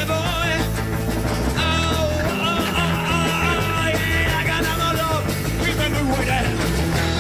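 Rock music from a street band: a lead vocal singing over guitar, playing throughout.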